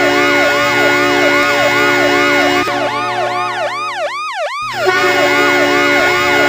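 Hockey goal horn blowing a steady low chord under a siren wailing up and down about two and a half times a second. Past the midpoint the siren cycles faster and lower. About four and a half seconds in, horn and siren cut out for a moment, then both start again.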